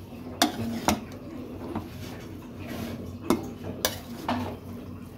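A metal spoon clinking against cookware: a handful of sharp, unevenly spaced clinks.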